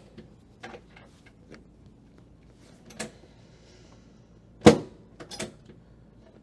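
Drop section of a chiropractic drop table falling during an adjustment: a lighter knock about three seconds in, then a loud sharp clunk, followed by a few small clicks.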